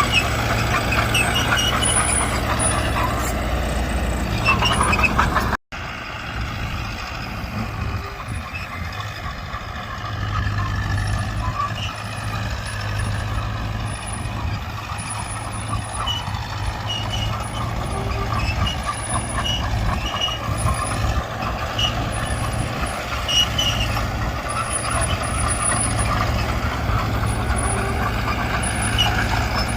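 Diesel engines of a Mitsubishi BD2G bulldozer and a dump truck running steadily as they work, with a brief break in the sound about five seconds in.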